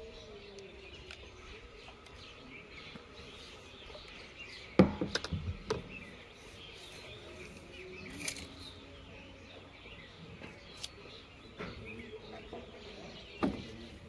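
Birds chirping in the background. About five seconds in there is a sharp knock followed by a quick run of smaller clatters, and there is one more knock near the end: the knocks of PVC pipe and fittings being handled and pushed together while a solvent-cement joint is made.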